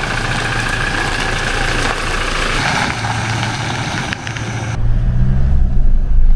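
Vehicle engine running with road noise. About two-thirds of the way through the sound changes abruptly to a louder, deeper rumble.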